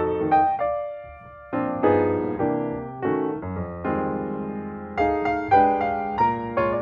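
Background piano music: a slow run of struck chords and single notes, with a short pause about a second in.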